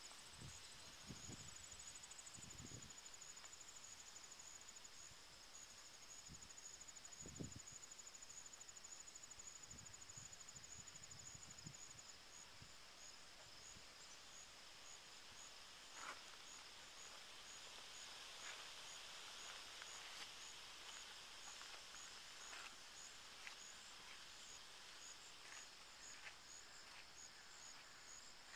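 Faint high-pitched trilling of insects: a rapid continuous trill for about the first twelve seconds, then evenly spaced chirps about two a second. A few soft low thumps come in the first eight seconds.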